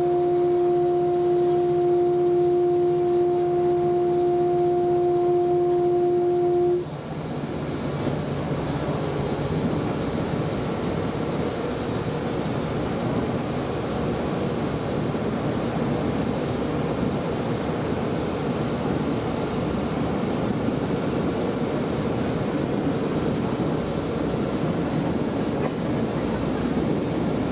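Railbus horn holding one long steady note, cutting off suddenly about seven seconds in. Then the steady rumble of the diesel railbus running along the track, heard from inside the driver's cab.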